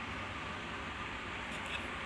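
Steady low hiss and hum of room tone, with one faint click near the end.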